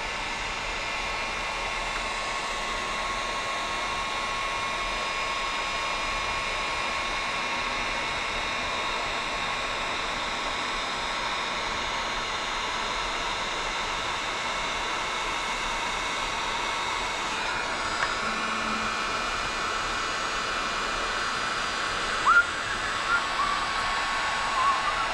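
Wagner electric heat gun running on its high setting: a steady rush of blown air with a constant motor whine. A few small knocks come near the end.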